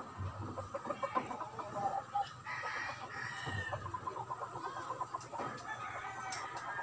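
Chickens clucking and calling, with a rooster crowing partway through.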